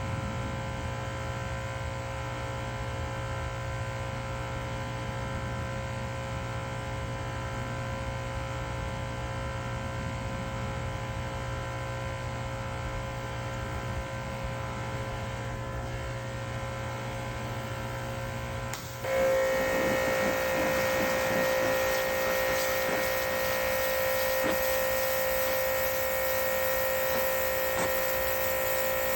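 Pressure washer running with a steady hum. About two-thirds of the way through it gets louder and a spraying hiss joins in.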